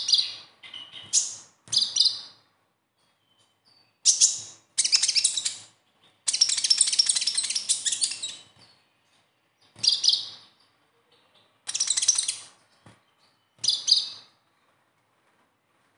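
Copper-throated sunbird (kolibri ninja) singing its rapid high twittering 'besetan' song in short separate phrases with pauses between, the longest and densest phrase about six to eight seconds in.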